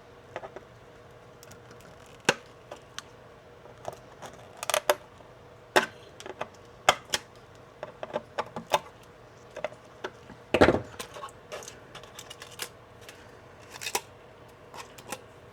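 Irregular sharp clicks and taps of a hand tool working on a hard plastic part, picking and breaking leftover support material out of a 3D-printed mount, with one louder knock about ten and a half seconds in.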